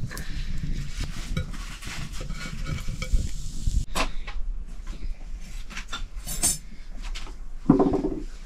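Metal pots and utensils clinking, scraping and knocking at a wood-fire hearth, in scattered irregular strokes with one sharp knock about halfway. A brief animal call near the end.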